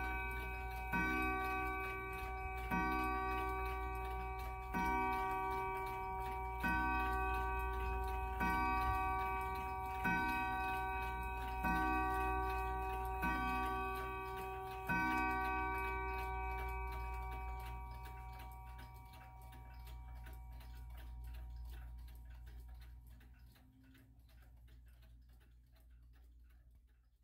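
Howard Miller 612-365 triple chime mantel clock striking the closing strokes of twelve o'clock: nine ringing hour strokes about two seconds apart, each a bright metallic tone with several pitches. The last stroke rings away slowly over several seconds, leaving the clock's soft ticking.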